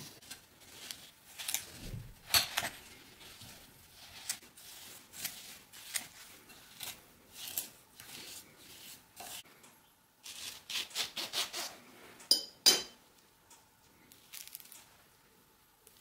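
A metal fork creaming butter and sugar in a glass bowl: irregular scrapes and clicks of the tines against the glass. Late on comes a louder clink that rings briefly.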